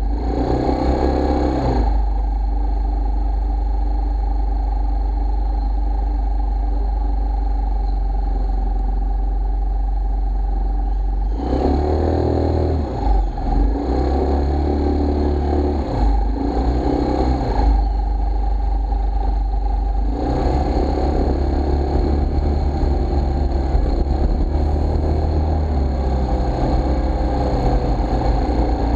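A scooter being ridden slowly through city streets: its motor running under road and wind rumble on the action camera's microphone. The sound gets louder about 11 seconds in and again from about 20 seconds in.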